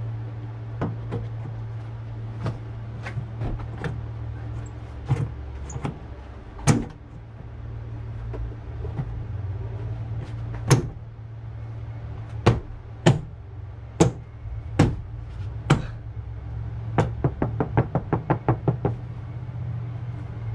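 Plastic liftgate trim panel being pressed and knocked back onto an SUV's tailgate, its clips snapping in: scattered sharp knocks and taps, then a quick run of about a dozen rapid taps near the end. A steady low hum runs underneath.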